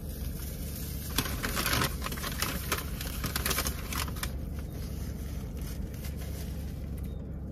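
Paper fast-food wrappers rustling and crinkling as they are handled, busiest in the first half, over a steady low hum.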